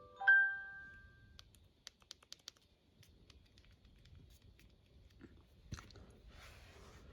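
A short electronic chime of a few bell-like notes rings out right at the start and dies away within about a second. Then comes a quick run of sharp clicks, scattered faint clicks and a short rustle, like small parts and packaging being handled.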